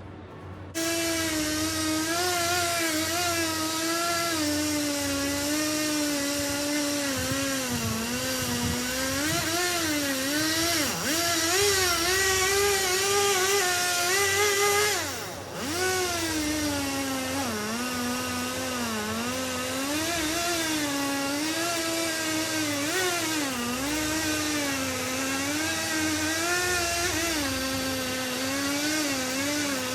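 Chainsaw engine running at high speed while cutting, its pitch constantly rising and falling as the load changes. It starts abruptly about a second in and dips briefly about halfway through.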